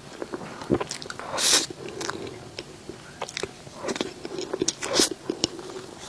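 Close-miked eating sounds of dessert: wet mouth clicks and chewing, with two louder, hissy bites about one and a half seconds and five seconds in.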